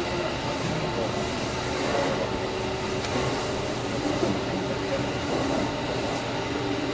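Interior running noise of an electric commuter train on the JR Chūō Main Line: a steady rumble of wheels on the rails, with a faint whine wavering in pitch over it.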